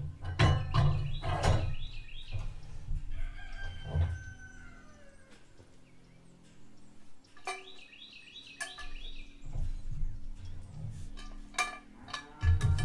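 A rooster crows twice, once about half a second in and again about seven and a half seconds in, with scattered knocks of wood and metal as boards and a cant hook are handled at the sawmill.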